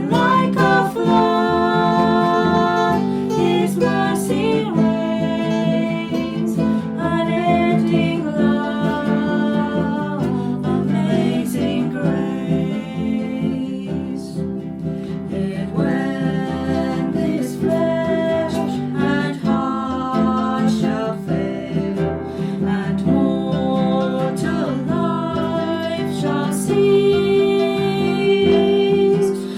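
Music led by an acoustic guitar, playing continuously.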